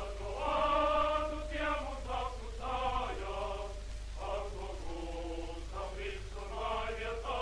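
A choir singing a song in long held notes, from an old newsreel soundtrack, over a steady low hum.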